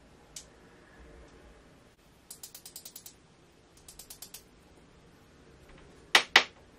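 Quick runs of small, even clicks from the ratchet wheel and click of a vintage Rolex 10½''' Hunter watch movement as tweezers work at it. Near the end come two sharp, louder taps of steel tweezers, the loudest sounds here.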